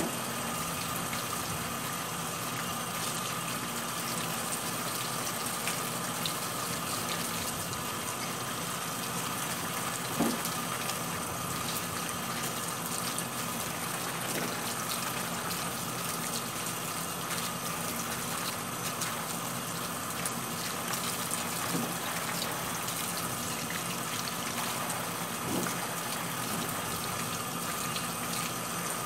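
Kitchen tap running steadily onto a sink heaped with small green lemons being washed by hand, with a few light knocks, the clearest about ten seconds in.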